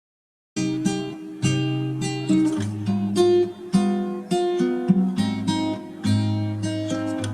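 Background music: strummed acoustic guitar, starting about half a second in after silence.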